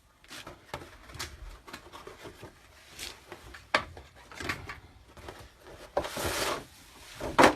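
Handling noise from a Honeywell furnace humidifier's plastic housing and filter pad: scattered light clicks and knocks with rubbing, a longer scraping rustle about six seconds in, and a sharper knock near the end.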